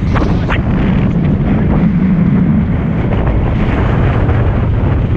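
Strong wind buffeting the microphone of a handheld action camera: a loud, steady low rumble with a few brief crackles about half a second in.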